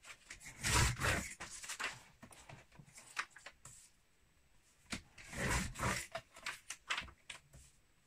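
Paper being handled at a craft table: rustling and scraping swishes with light clicks, in a short spell about a second in and a longer one from about five seconds.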